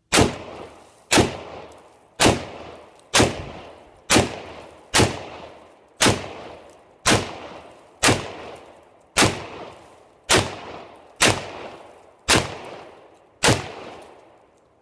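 Smith & Wesson Sigma .40 S&W pistol fired fourteen times at a steady pace of about one shot a second. Each shot dies away over most of a second before the next.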